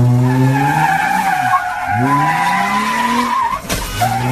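Jeep engine being revved hard, its pitch dropping and then climbing again, while the tyres squeal steadily on pavement as it is thrown around in tight turns. A single sharp knock comes near the end.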